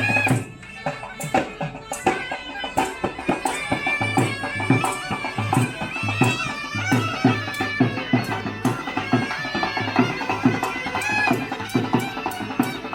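A snake charmer's been (pungi), a reed pipe with a drone, playing a wavering, nasal melody over a steady beat of hand drums.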